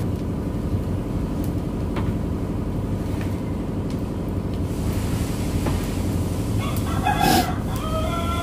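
A rooster crows near the end, a long pitched call that falls in pitch as it trails off, over a steady low rumble.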